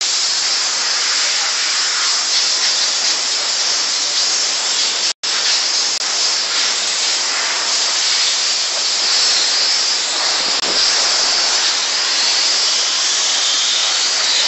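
Steam car washer's nozzle blowing a continuous jet of steam: a loud, even hiss, broken by a brief gap of silence about five seconds in.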